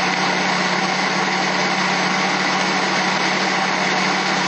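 Countertop electric blender running steadily at low speed, churning orange flesh and juice with vegan yogurt into a smooth liquid.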